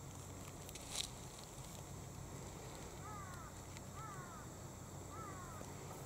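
A phone camera's shutter clicks once about a second in. Then come three short, clear bird calls about a second apart, each falling in pitch.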